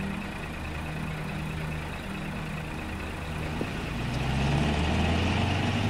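Old Mercedes-Benz truck's diesel engine running at low speed as the laden truck crawls across a two-plank makeshift bridge. The engine note swells and rises slightly about four seconds in as it is given more throttle.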